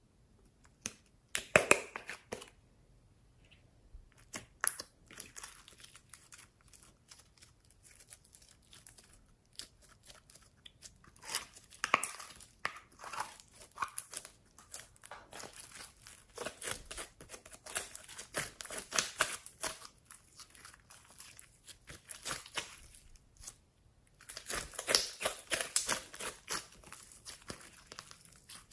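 Glossy glitter slime being squeezed and stretched by hand, making sticky crackling and small popping clicks; the crackling grows busier near the end as the slime is pulled into a long sheet.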